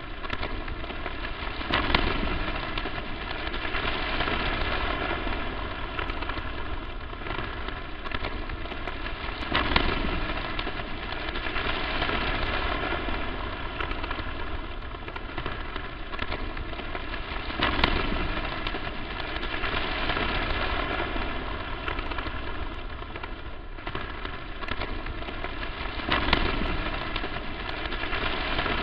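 Crackling static noise, a dense steady hiss that swells louder about every eight seconds.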